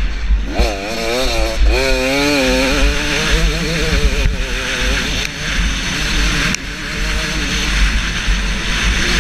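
KTM 250SX single-cylinder two-stroke motocross engine revving hard under way, its pitch warbling rapidly up and down. A heavy low wind rumble sits on the helmet camera.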